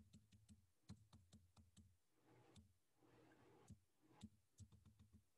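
Faint, irregular clicking of a computer keyboard and mouse, several clicks a second in short runs, as text is typed and selected at a desk.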